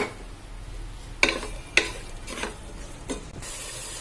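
Wooden spoon stirring and tossing noodles in a hot frying pan, about five quick scraping strokes over a steady frying sizzle.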